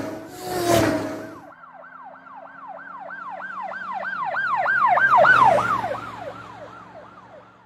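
Siren sound effect: a fast yelping siren sweeping up and down about four times a second, growing louder to a peak about five seconds in and then fading away, as if the vehicle were passing by. It is opened by a loud noisy blast lasting about a second.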